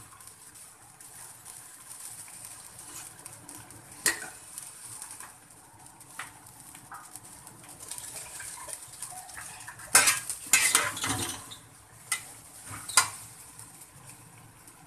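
Metal spatula clattering and scraping against an aluminium pot while stirring cut okra frying in oil, over a faint steady sizzle. The clatters come singly about four seconds in and again near the end, with the loudest run of them about ten seconds in.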